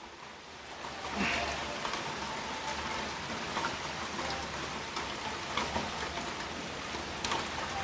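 Steady rain falling, with a few louder drop clicks now and then.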